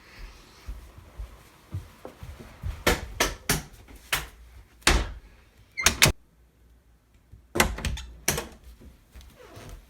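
A series of sharp knocks and clicks, about ten of them in an irregular run, in a small room.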